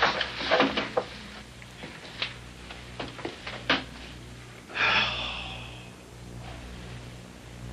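Scuffs and sharp knocks as a man gets up from a metal chair and moves about on a hard floor, then a short breathy burst about five seconds in, over a low steady hum.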